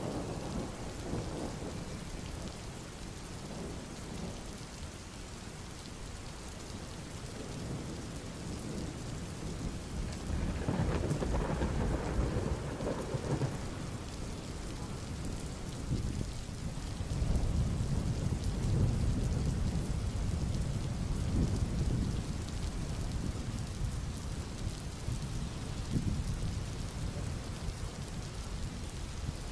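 Thunder rumbling low from an approaching storm, swelling about ten seconds in and again, for longer, a few seconds later, over a steady hiss.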